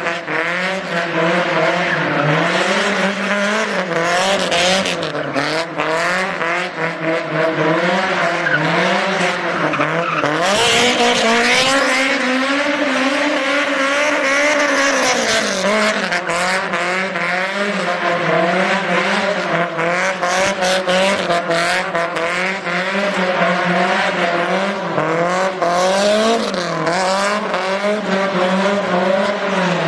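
Honda S2000's four-cylinder engine revving hard, its pitch wavering rapidly up and down and held steady at high revs for a few seconds midway, as the car drifts in circles with its tyres squealing.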